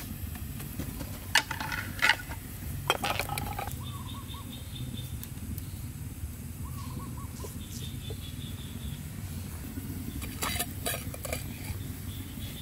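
Several sharp knocks, three in the first three seconds and a quick cluster near the end, over a steady low background rumble, with faint short bird chirps in between.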